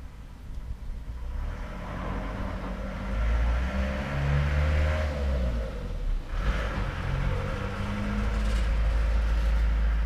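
Motor traffic passing, a low rumble with an engine hum that rises and falls in pitch. It swells around the middle, dips briefly about six seconds in, and swells again near the end.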